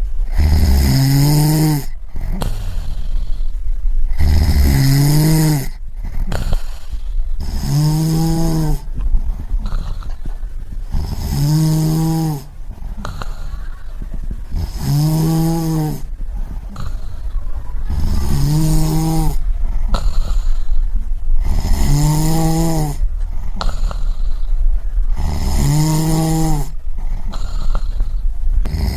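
A person snoring in a steady rhythm: a pitched, rattling snore about every three and a half seconds, eight in all, with breathy hiss between them.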